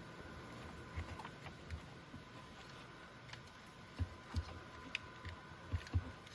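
Soft scattered clicks and taps of plastic wiring-harness connectors being handled and pushed together, a few light knocks with a cluster near the end.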